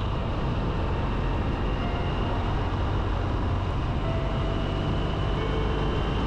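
BMW 1200 boxer-twin motorcycle running steadily on the road, its low engine rumble mixed with wind and road noise.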